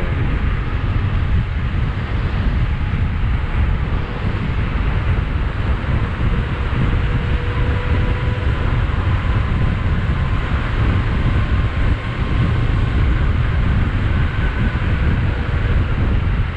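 Wind buffeting the microphone of a rider moving at speed on an electric bike, a steady low rumble with a faint thin whine held in the background.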